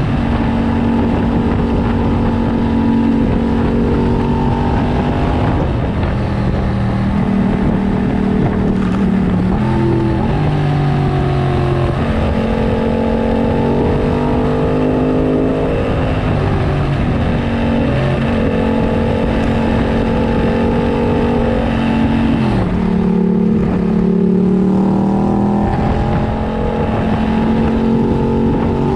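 2015 Yamaha FZ-07's 689 cc parallel-twin engine through a full aftermarket racing exhaust, under way. Its pitch rises and falls several times as the throttle is rolled on and off and the gears change.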